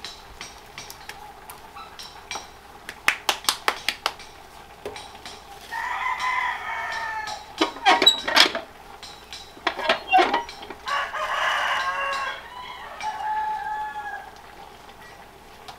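A rooster crowing twice, about six seconds in and again from about eleven seconds, each a long call. Around these come sharp clacks and knocks from a metal tortilla press and masa being worked by hand: a quick run of them about three seconds in, and the loudest strikes about eight and ten seconds in.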